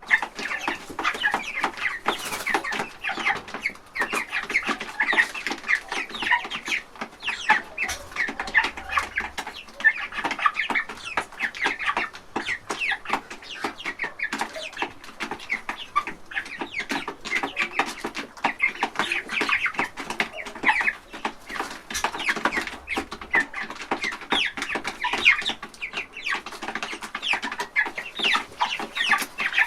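A flock of chickens clucking continuously, many short overlapping calls, with scattered knocks and scratching sounds.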